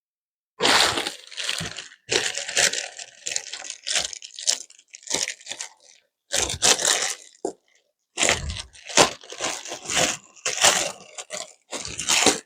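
Knife cutting through raw carrots on a cutting board: a run of crunching and cracking cuts with sharp clicks in between.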